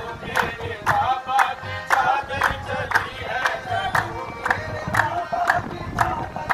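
Men chanting a qawwali-style devotional song together over steady hand-clapping, about two claps a second.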